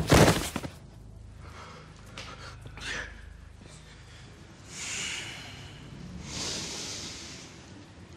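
A person breathing heavily, with two slow audible breaths a few seconds apart over a low steady rumble, after a loud short burst of noise right at the start.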